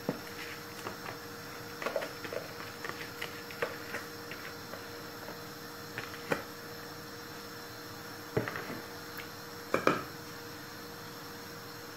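Drained, soaked rice being tipped into a steel pot of boiling stock, with scattered small taps and clinks of utensil and pot, then a wooden spatula knocking against the steel pot a few times near the end.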